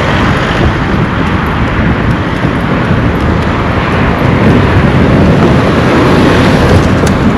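Road traffic passing close by: a steady rushing of vehicle engines and tyres, growing a little louder about halfway through.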